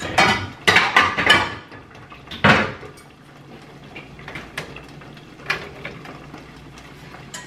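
Pots, lids and utensils being handled at a kitchen stove. There are several loud clattering, scraping noises in the first three seconds, then only a few light knocks.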